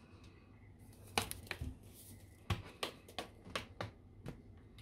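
Kitchen things being handled: a scattered series of sharp clicks and light knocks, about ten, over a faint background.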